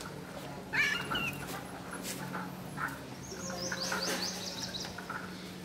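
A dog giving a short high cry about a second in, then a quick run of high chirps from a bird near the middle.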